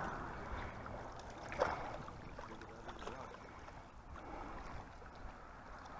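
Lake water lapping with wind rumbling on the microphone, and one short sharp knock about a second and a half in.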